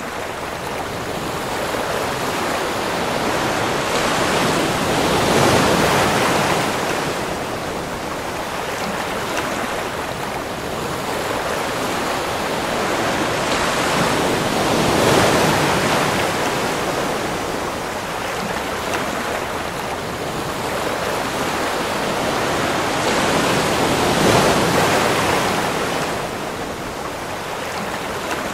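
Ocean surf breaking and washing up a sandy beach: a continuous rushing that swells three times, about nine seconds apart, as the waves break.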